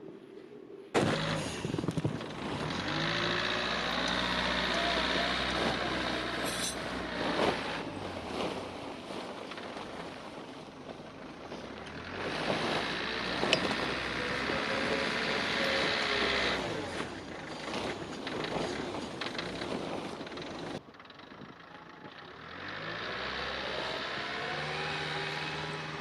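A motor vehicle's engine running with road noise, its pitch rising and falling as it drives. The sound starts abruptly about a second in and drops away abruptly near the end.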